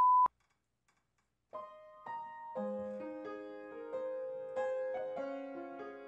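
A loud, steady beep cuts off right at the start, then after about a second of silence a piano begins playing, its notes entering one by one and building into sustained chords.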